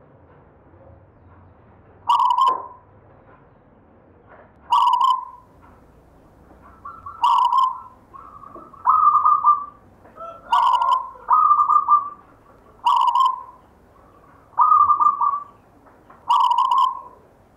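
Zebra dove (perkutut) cooing: nine short, rhythmic coo phrases, one every second and a half to two and a half seconds, several of them broken into quick stuttering notes.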